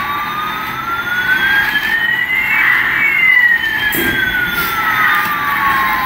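Two electronic siren-like tones gliding in opposite directions, one rising and one falling, crossing about halfway through.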